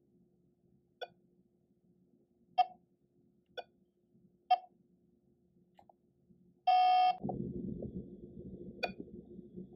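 Electronic Pong sounds from a miniature retro-style TV game: short blips about a second apart as the ball is hit, then a longer beep about seven seconds in. A steady low rumbling noise follows it.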